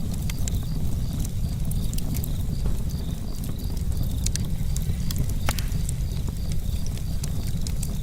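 Campfire burning: wood crackling with frequent sharp pops over a steady low rumble of the flames. A faint high chirping repeats a few times a second throughout.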